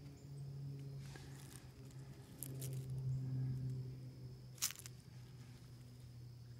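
Faint rustling and a sharp click from fresh lion's mane mushrooms being handled over a mesh bag, over a low steady background hum.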